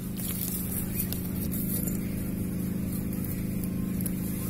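An engine or motor running steadily, a low even hum that does not change, with a few faint clicks in the first couple of seconds.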